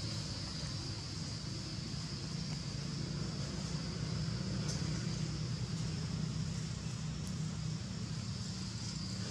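Steady outdoor background: a low, constant rumble with a steady high-pitched hiss over it, and no monkey calls.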